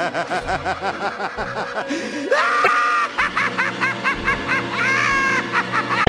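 Ringtone music made of quick, repeating, laugh-like warbling notes, about six a second. About two seconds in, the pitch glides up and the notes continue higher.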